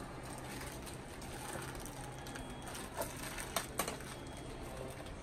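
Packaging being handled and opened by hand: rustling and crinkling of small cardboard blind boxes and the bags inside, with a few sharp crackles about three and a half seconds in.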